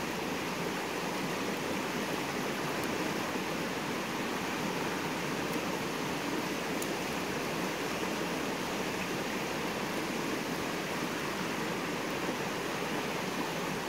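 Steady rush of a rocky river running over its rapids.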